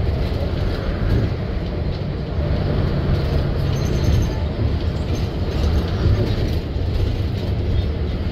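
City bus driving, heard from inside the passenger cabin: a steady low rumble of engine and road noise.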